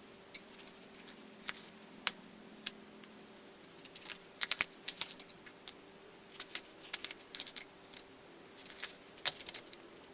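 A black radish being hollowed out: short, crisp scraping strokes that come in quick clusters of several.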